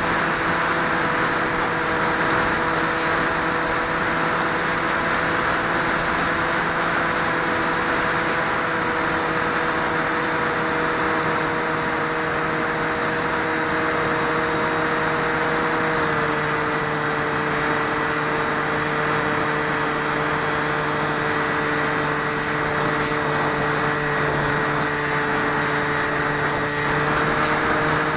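Swift 2 FPV model plane's electric motor and propeller droning steadily over rushing wind, picked up by the onboard 808 camera's microphone; the pitch steps down slightly about halfway through.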